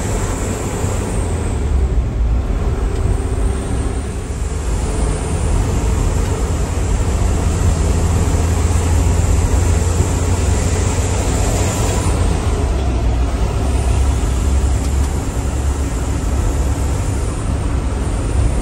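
Steady engine drone and road noise of a truck under way, heard inside its cab: a deep, unbroken low rumble.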